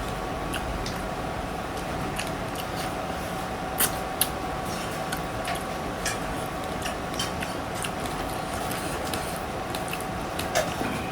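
Chewing and eating of pork ribs, with scattered light clicks and taps, over a steady background hiss and faint hum.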